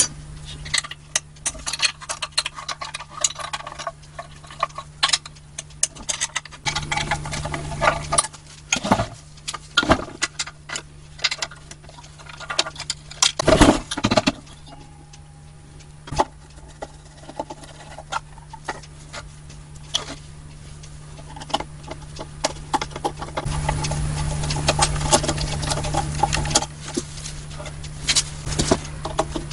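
Irregular metal clinks, taps and rattles from hand tools and parts as a belt-driven air compressor is taken apart, with a low steady hum underneath. The loudest knocks come about halfway through, and a busier stretch of handling follows later.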